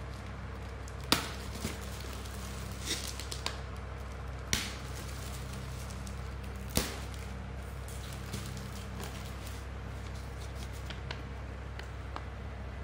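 Plastic wrap and bubble wrap being pulled off a package by hand: crinkling with several sharp cracks, the loudest a little over a second in and others about four and a half and seven seconds in, over a steady low hum.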